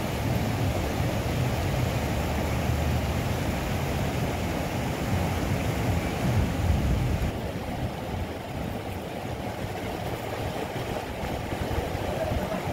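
River rapids rushing over rocks, a steady roar of white water with a low rumble underneath; it turns a little quieter and duller about seven seconds in.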